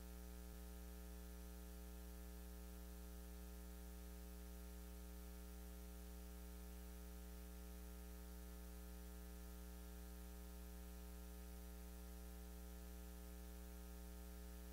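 Steady electrical mains hum with a stack of evenly spaced overtones, constant throughout, in an otherwise silent pause.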